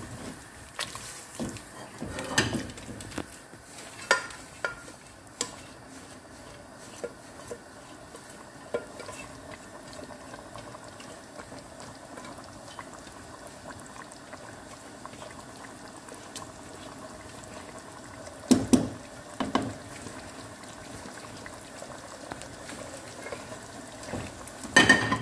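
Chicken curry gravy simmering in a pot, with a spatula stirring and knocking against the pan now and then. The loudest knocks come around eighteen to twenty seconds in and again near the end.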